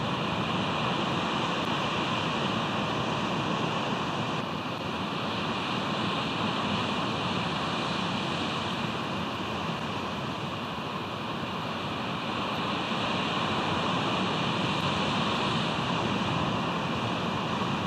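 Steady wash of ocean surf and wind on an outdoor nest-camera microphone, rising and falling only slowly.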